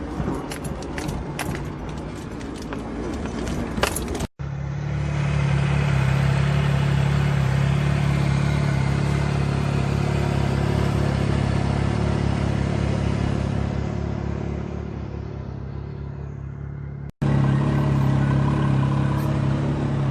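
Off-road vehicle engine running steadily under load with a pulsing low rumble, with rattling and clattering during the first few seconds. The sound cuts out abruptly twice, about four seconds in and near the end.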